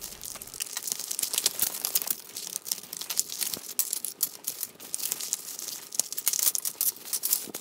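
Clear plastic wrap crinkling and tearing as plastic toy floor tiles are pulled out of their packaging, a busy crackle throughout.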